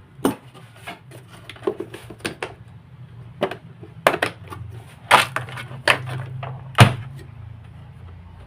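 Plastic clicks and cracks as the housing clips of an Electrolux Prosilent vacuum cleaner are pried loose with a screwdriver: about nine sharp snaps, the loudest about seven seconds in.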